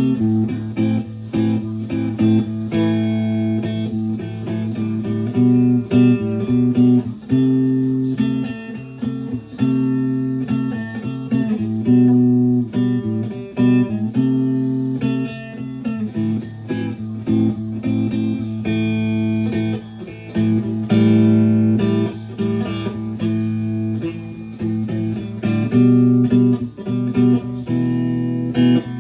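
Open-chambered Telecaster-style electric guitar played, chords and notes ringing out with a fresh pick attack every second or so.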